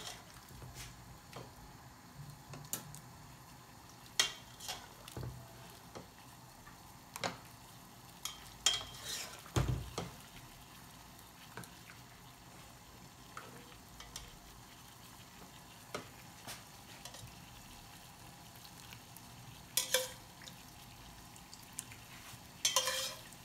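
A metal ladle scooping vegetable soup from a copper pot and pouring it into soup bowls: soft sloshing and pouring with scattered clinks and taps of the ladle against the pot and bowls, and a dull knock about ten seconds in.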